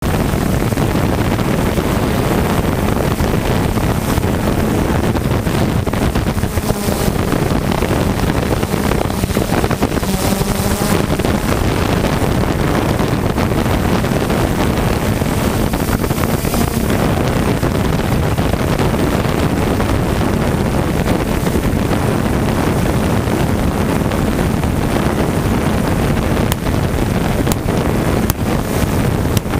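Steady whir of a multirotor drone's motors and propellers, heard through its onboard camera, with wind buffeting the microphone.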